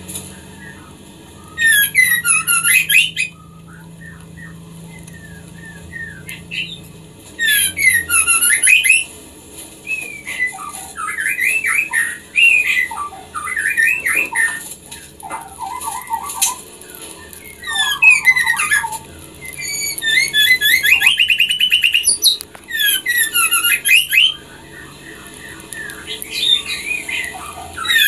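White-rumped shama (murai batu) calling: loud bursts of fast chattering notes every few seconds, with softer scattered whistles and squeaks between. It is the call of a female in breeding condition calling to a male, used to stimulate captive birds to mate.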